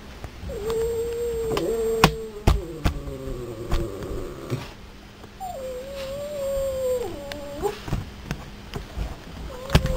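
English Springer Spaniel howling in two long, drawn-out calls. The first is held fairly steady for about four seconds; the second rises at its start and wavers and dips near its end. Several sharp clicks come during and after the howls.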